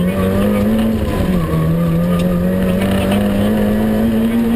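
Citroën AX GTI rally car's four-cylinder engine at full acceleration, heard from inside the cabin. The revs climb, drop sharply at an upshift about a second in, then climb steadily again.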